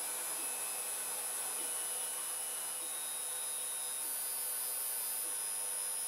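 3D printer standing idle just after a finished print, its cooling fans running with a steady whirr and a faint high electrical whine.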